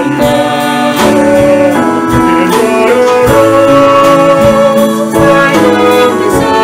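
A man and a girl singing a worship song together, accompanied by clarinet and piano.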